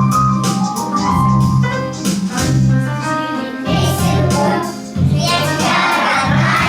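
Children's song: an instrumental backing track with a repeating bass line, joined about halfway through by a group of children's voices singing.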